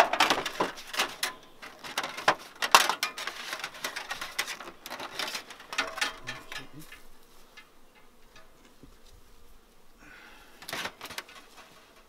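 Wire being twisted and scraped against a beehive's metal-clad outer cover: a rapid run of clicks, scratches and rattles that thins out after about six seconds, with a short cluster of knocks near the end.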